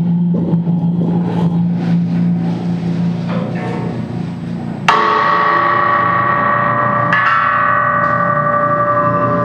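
A low steady hum, then about halfway in a struck metal instrument hit hard, ringing on in a bell-like cluster of tones. A second strike about two seconds later adds a fresh layer of ringing.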